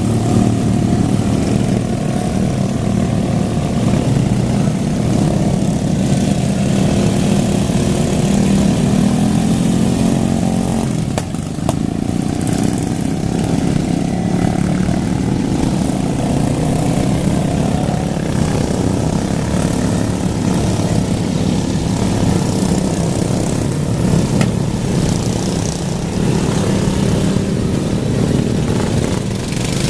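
Racing lawn mower engines running hard, the pitch rising and falling as the mowers race round a dirt track, with a brief drop about eleven seconds in.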